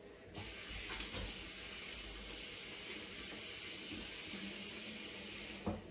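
Kitchen tap running steadily, water streaming into the sink, turned on just after the start and shut off abruptly near the end.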